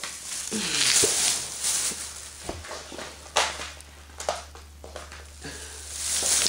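Plastic packaging crinkling and rustling as small packaged items are handled, with several sharp clicks and taps, over a steady low hum.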